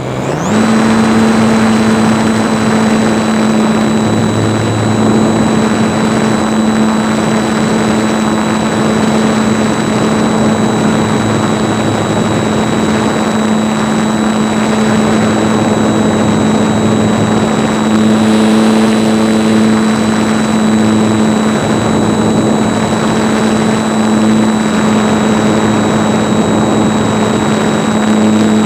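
RC airplane's motor and propeller coming up to speed right at the start, then running at a steady, high throttle with a constant pitch, over a rush of noise.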